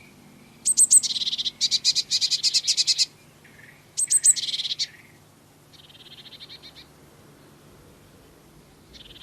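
Blue tits calling close by: bursts of rapid, high, rasping chirps, the first two loud and the later ones fainter.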